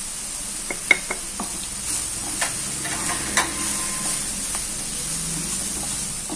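Chopped vegetables sizzling steadily as they sauté in oil in a pan, stirred and scraped with a spatula, with a few sharp clicks of the spatula against the pan.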